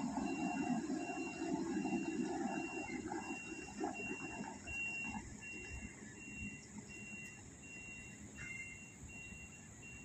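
A pickup truck's engine fading as it drives away, dying out about five seconds in. Throughout, a thin high-pitched animal call repeats evenly, nearly twice a second.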